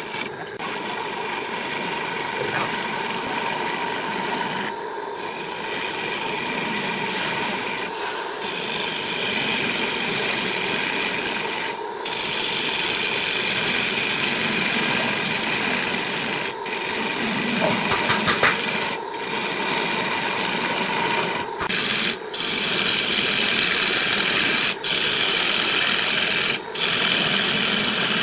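A turning gouge cutting the face of a large spinning wooden disc on a wood lathe: a steady rasping, shearing hiss as shavings peel off, broken by brief gaps about nine times when the tool lifts off the wood.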